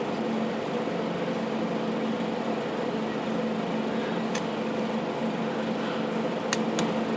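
Steady hum of a running fan-type machine, with three light clicks of small metal parts being handled in the second half.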